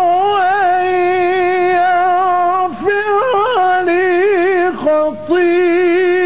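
Man's voice chanting Quranic recitation in the melodic mujawwad style, holding long notes with rapid wavering ornaments, with short breaks for breath about three seconds in and near five seconds in.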